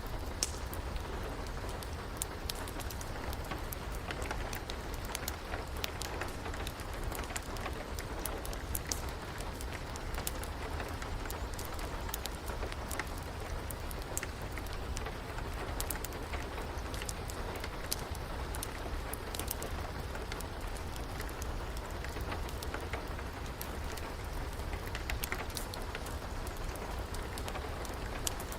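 Steady rain hiss mixed with a wood fire's frequent sharp crackles and pops, over a low steady rumble.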